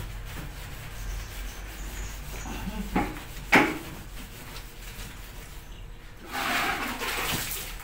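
A sponge scrubbing the plastic cabinet of a washing machine by hand, with two sharp knocks against the machine about three seconds in. Near the end a tap runs for about a second.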